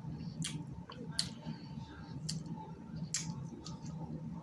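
Eating snow crab legs: a few sharp clicks and snaps of crab shell with soft wet chewing between them.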